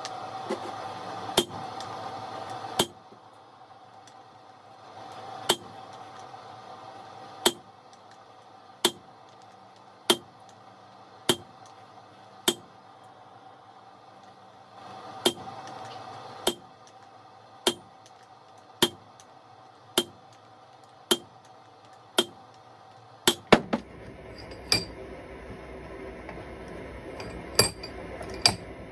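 Hand hammer striking red-hot steel on an anvil in slow, even blows about every second and a bit, each a sharp metallic strike with a short ring, as a steel block is forged into a rounding hammer head. Near the end the blows stop and a few lighter metal clinks follow.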